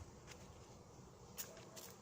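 Near silence with a few faint clicks, about three in two seconds, over a low background rumble.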